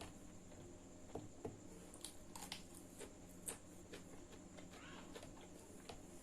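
Faint eating sounds: scattered small clicks and smacks of chewing and mouth noises, over a steady low hum.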